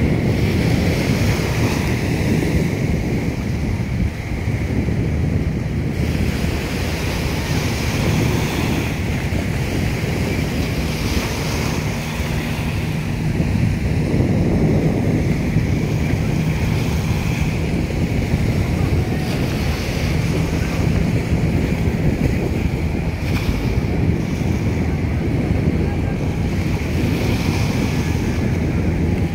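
Wind buffeting the microphone over choppy harbour water, with a faint steady low engine hum from the passing vessels in the second half.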